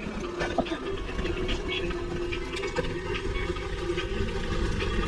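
Wind rumbling on the microphone of a moving gravel bike, with scattered light clicks and rattles.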